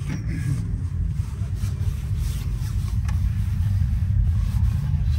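Low, steady rumble of a Mercedes E-Class coupé's engine and road noise heard inside the car's cabin, slowly growing louder.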